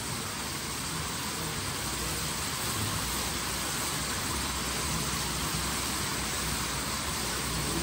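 Steady sizzling hiss of crabs cooking in a butter, garlic and onion refrito in an aluminium pot, with a low steady rumble underneath.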